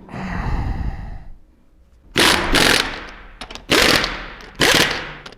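Pneumatic impact wrench rattling in short bursts on the wheel bolts: one longer run at the start, then about four short bursts in the second half.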